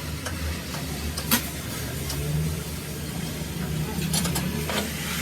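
A motor or engine running steadily with a low hum, with a few sharp clicks, the loudest about a second and a half in.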